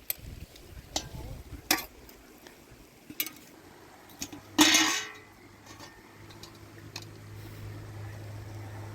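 Utensils clinking and knocking against dishes and pots, a few separate clinks followed by one louder clattering scrape about halfway through. A low steady hum sets in during the last few seconds.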